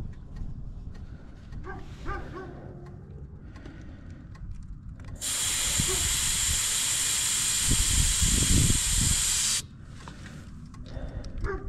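Air hissing steadily out of an ATV tire's valve stem for about four seconds, starting about five seconds in and cutting off suddenly: the tire is being let down.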